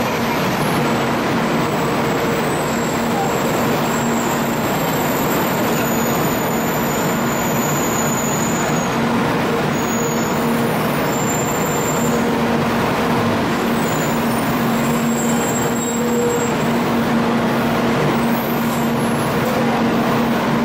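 Steady hum of a busy Shinkansen station platform beside a standing N700-series bullet train, with a low droning tone that fades out briefly about halfway through and then returns.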